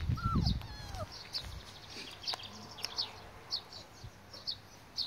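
Border collie puppies whining briefly, a few short falling whimpers in the first second, over a small bird chirping high about twice a second. A low rumble sits under the first half-second.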